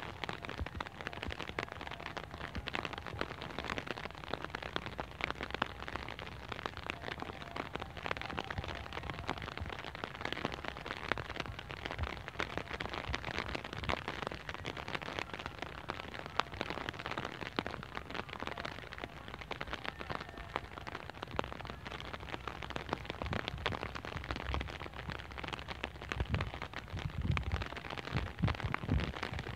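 Wind across a wheat field on a handheld microphone: a steady, dense crackling rustle, with deeper gusts buffeting the microphone over the last few seconds.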